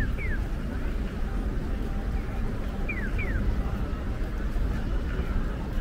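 Busy city-street ambience with a steady traffic rumble. Over it, a pair of short, falling electronic chirps repeats about every three seconds, like the "piyo-piyo" tone of a Japanese pedestrian crossing signal.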